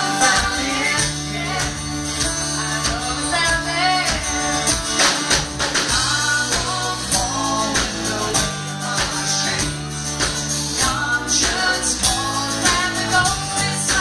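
A live country band plays, with a woman singing lead over acoustic guitars, electric bass and a drum kit whose cymbals keep a steady beat.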